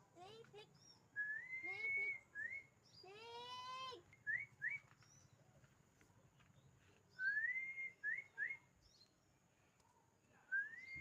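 Changeable hawk-eagle calling: shrill whistles, each phrase a long rising note followed by short upslurred notes, given three times. A lower, rougher call with many overtones comes about three seconds in.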